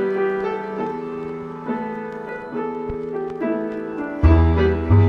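Background music: a piano playing sustained chords, with a deep bass line coming in about four seconds in.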